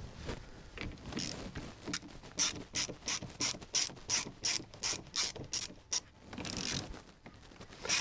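Ratcheting screwdriver backing out Phillips screws from a lock plate: a run of sharp ratchet clicks, about three a second, with a brief scraping rasp near the end before the clicking resumes.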